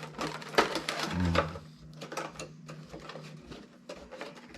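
Cardboard and plastic packaging of a Funko Pop box being handled, with many quick, irregular clicks and crinkles as the figure is worked out of its insert.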